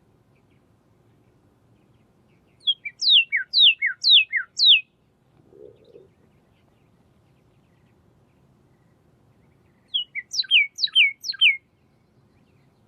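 Pyrrhuloxia singing: two phrases of quick, steeply falling whistled notes, about four notes each, the phrases several seconds apart.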